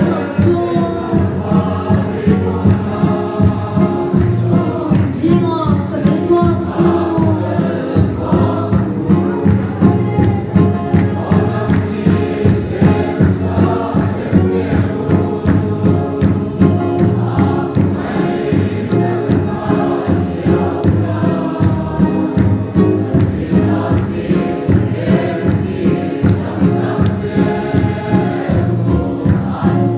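Congregation singing a hymn together in chorus, kept to a steady beat of drum and hand-clapping.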